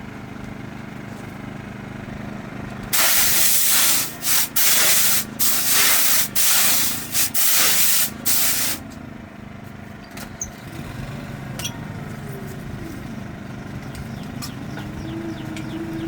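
Loud hissing spray in about six bursts, cutting in and out over several seconds, over an engine running steadily. Near the end the engine's pitch rises and then holds.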